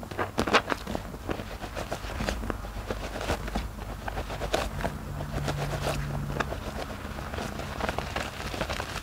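Rubber-gloved hands squeezing and kneading a soap-soaked sponge in a bowl of thick foam: irregular wet squelches and crackles from the suds.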